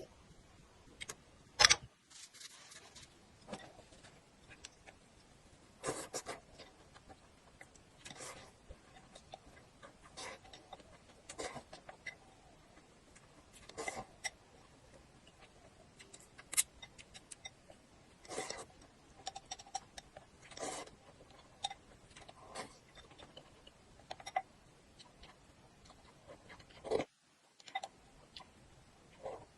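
Close-miked eating sounds of spicy glass noodles: irregular short clicks and wet smacks of chewing and mouthfuls, one every second or two, the loudest about one and a half seconds in.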